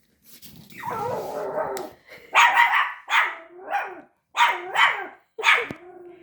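A 5-month-old Pomeranian puppy barking at a tiger toy that frightens it: a rougher, longer sound for the first couple of seconds, then a run of about seven sharp, high barks.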